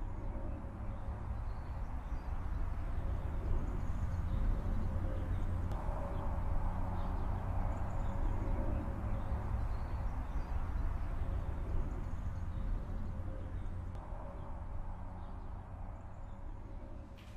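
Steady outdoor ambience: a low rumble with a faint steady hum and occasional faint high chirps that may be birds. It swells slightly in the middle and fades toward the end.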